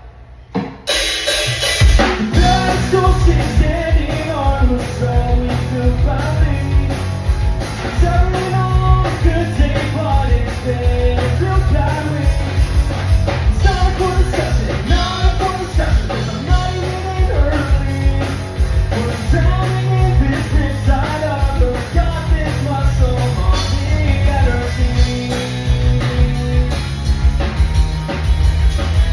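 Rock song with singing over drum kit and a heavy bass line, kicking in about a second in and playing loud and steady.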